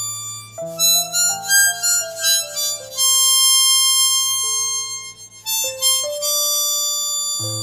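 Harmonica playing a melody solo: a held note, a quick run of short stepping notes about half a second in, then long sustained notes, with a brief break a little after five seconds.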